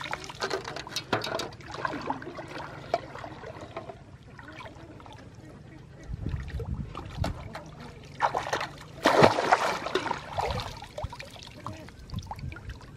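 Pond water splashing and trickling as a person wades waist-deep and works in it, with small splashes of scattered bait hitting the surface early on and a louder splash about nine seconds in.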